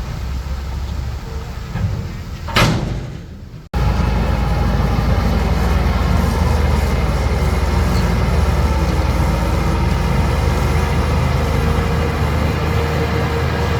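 Bulldozer's diesel engine running steadily, with a brief loud rush of noise about two and a half seconds in. A second later the sound cuts off abruptly and resumes louder, the engine now running with a steady whine over it.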